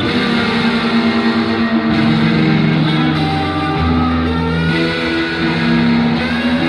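Background music led by guitar, with held notes and chords that change every second or two.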